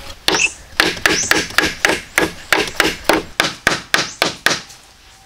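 A rapid series of hand-tool blows on wood, about three to four strikes a second, that stops about four and a half seconds in.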